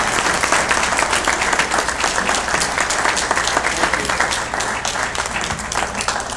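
Small audience applauding, many hands clapping steadily, easing off near the end.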